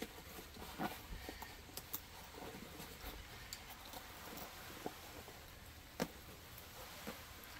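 Faint handling of a large nylon military rucksack: light rustling with scattered small clicks and knocks, the sharpest about a second in and near six seconds in.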